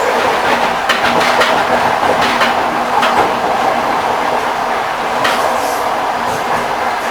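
Railway carriage wheels clacking over rail joints, with sharp clacks scattered through a steady rumble of the moving train.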